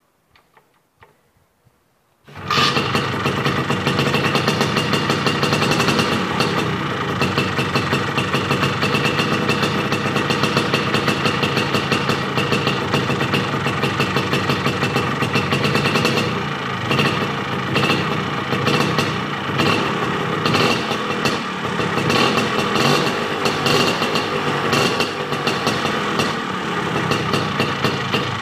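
Vespa 50 Special's two-stroke single-cylinder engine, fitted with a Proma aftermarket exhaust and believed by the owner to carry a 75 cc kit, starting abruptly about two seconds in and then running steadily at idle, its speed wavering a little in the second half.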